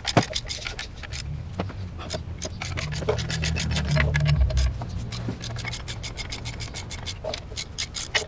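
Ratchet wrench and socket clicking in short irregular runs, with scrapes of metal on metal, as a bracket is unbolted in an engine bay; a quick run of clicks near the end.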